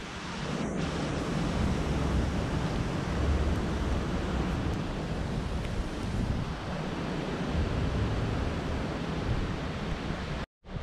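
Steady rushing outdoor noise with an uneven low rumble of wind buffeting the microphone.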